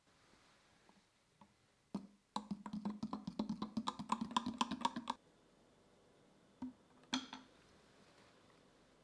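Metal spoon stirring custard mixture in a Pyrex glass measuring jug, clinking rapidly against the glass, several ringing clinks a second for about three seconds. Two more knocks of spoon on glass follow.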